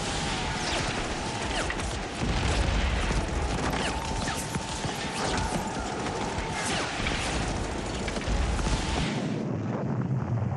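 Battle sounds: dense, rapid gunfire and explosions over a low rumble. A steady high tone runs until about seven seconds in, and the rumble drops away about nine seconds in.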